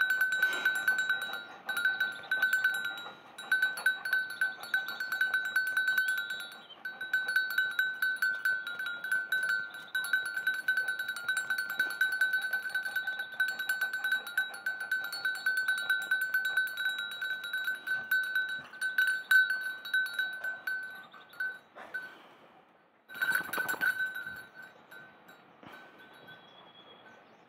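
Metal bell on a dog's collar clanking and ringing rapidly and without a break as the dog scratches itself with a hind leg. It stops about 21 seconds in, and a short burst of bell ringing follows a couple of seconds later.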